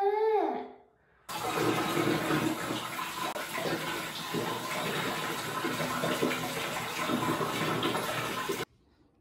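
Water running from a bathtub's wall-mounted mixer spout into the tub, a steady rushing that starts suddenly about a second in and cuts off suddenly near the end.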